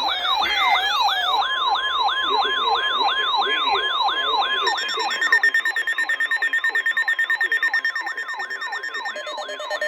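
Electronic alert tones from an Emergency Alert System broadcast: a siren-like tone sweeping up in pitch two to three times a second, with a steady tone joining it for a few seconds. From about five seconds in, a rapidly pulsing, buzzing tone sounds over the sweeps.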